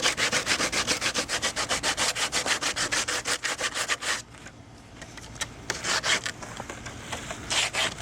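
80-grit sandpaper rubbed by hand in quick back-and-forth strokes. The strokes stop about four seconds in and pick up again a little later in shorter bursts.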